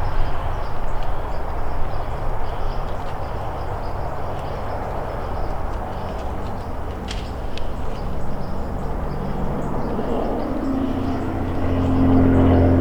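Steady rushing noise, joined about ten seconds in by a droning engine hum that grows louder as it approaches.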